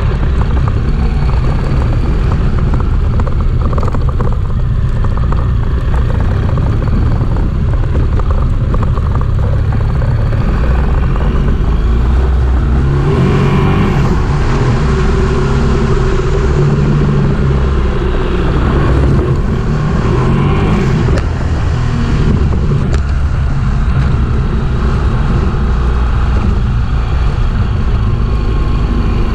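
Motor vehicle engine running under load with a heavy low rumble; in the middle stretch the revs rise and fall several times.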